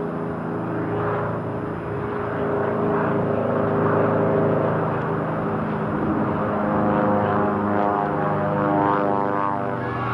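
An engine running steadily, a little louder from about two seconds in.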